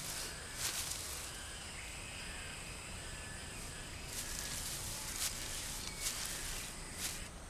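Tropical forest ambience: dry leaf litter rustles and crackles now and then under a chimpanzee's steps. A steady, high insect buzz runs for about three seconds from about a second in, with a few faint bird chirps.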